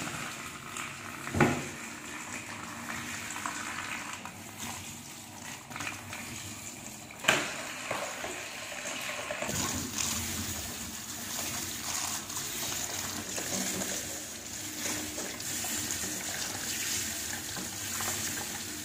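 Tap water running and splashing into a plastic basin in a stainless steel sink while hands rinse and rub a bunch of garlic stems; the running water gets louder about halfway through. Two sharp knocks, the loudest sounds, come about a second and a half in and about seven seconds in.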